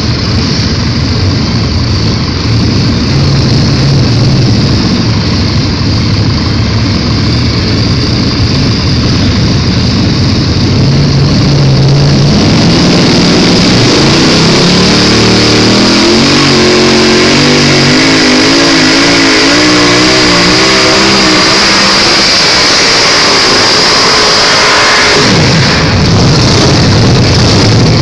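Modified pulling tractor engine at full throttle under load, getting louder as the tractor comes down the track, its pitch climbing and wavering, then dropping away sharply about 25 seconds in as the throttle is cut at the end of the pull, leaving a lower rumble.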